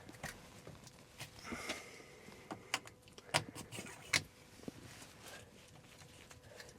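Scattered light clicks and knocks as tools and plumbing fittings are handled, with a faint steady hum underneath.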